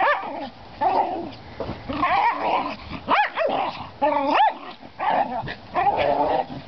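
Two small dogs, a West Highland White Terrier and a Pomeranian, play-fighting, with short play barks and yips about once a second, some rising and falling in pitch.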